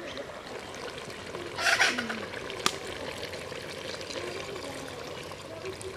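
Water poured from a clay pitcher into a large aluminium pot of chicken and ash gourd curry. There is a brief louder splash a little under two seconds in, a single sharp tap soon after, and then a steady pouring trickle.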